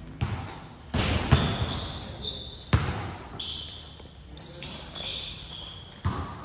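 A basketball bouncing hard on a court: five separate bounces at uneven spacing, about a second or more apart.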